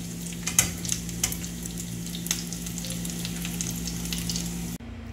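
Hot oil sizzling and crackling in a frying pan, with a scattered sharp pop now and then; it cuts off suddenly near the end.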